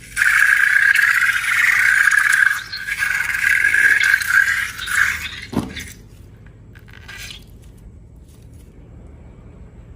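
A loud, steady scraping for about five and a half seconds, briefly broken near the middle, ending with a short squeak that falls in pitch. After that only faint small handling ticks remain.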